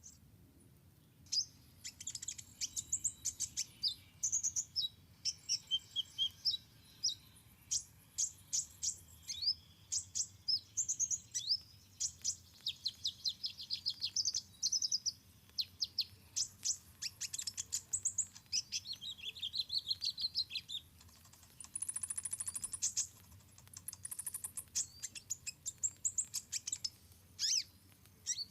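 Small songbirds chirping in quick, high-pitched series of calls and trills, with a short hiss about three-quarters of the way through.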